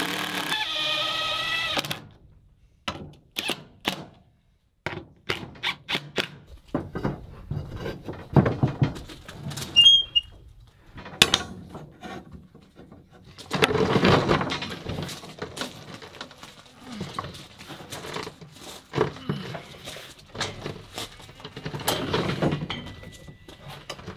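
A cordless drill whines as it drives a screw and stops about two seconds in. Then comes a long string of knocks and clanks as ribbed steel rebar is set into a hand-operated rebar bender and bent, with a longer stretch of rasping, grinding metal near the middle and again near the end.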